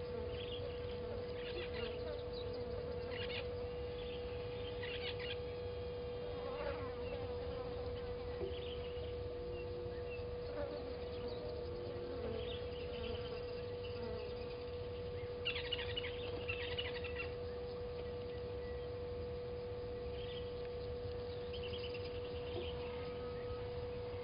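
Short, high bird calls at irregular intervals over a steady hum and a low rumble of background noise, with a denser run of calls about two-thirds of the way through.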